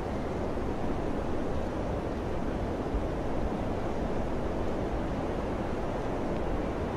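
Wind blowing steadily, an even, low-pitched rush of noise with no gusts or breaks.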